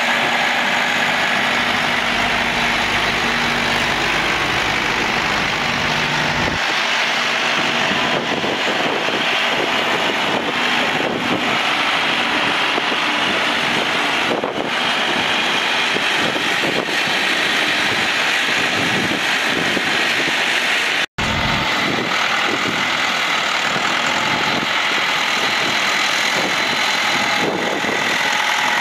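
Ford 7610 tractor's four-cylinder turbo diesel engine running steadily at idle, with a brief dropout about two-thirds of the way through.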